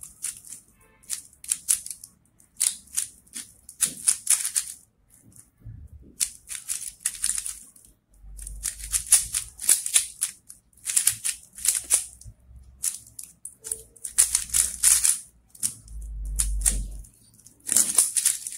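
A stickerless 3x3 speedcube being turned fast during a timed solve: rapid plastic clacking in bursts of one to three seconds with short pauses between them.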